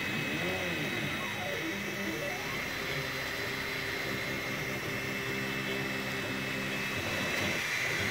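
Anet A8 3D printer printing the first layers of a part: its stepper motors whine in pitches that rise and fall as the print head speeds up and slows down, then hold steady, over a constant high whine.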